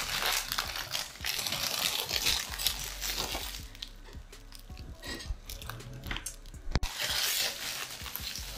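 Clear cellophane wrapping film crinkling as it is rolled around sweets and gathered and twisted closed into a bag, loudest in the first few seconds and again near the end, with one sharp click shortly before.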